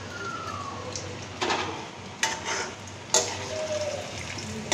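Besan-coated vegetable cutlets deep-frying in hot oil in an iron kadhai, a steady sizzle. A metal slotted spoon scrapes and knocks against the pan three times as the cutlets are turned, the last knock the loudest.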